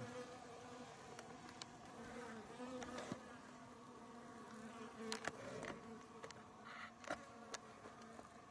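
Flying insect buzzing in a steady hum whose pitch wavers slightly, with several faint clicks scattered through.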